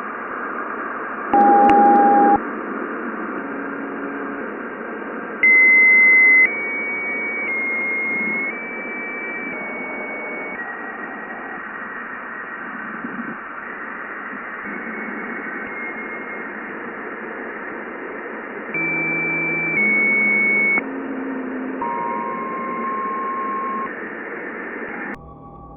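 Jupiter's radio emissions converted to sound: a steady static hiss with held tones that jump from one pitch to another every second or so. Louder tones stand out about two seconds in and about six seconds in, and the hiss cuts off abruptly near the end.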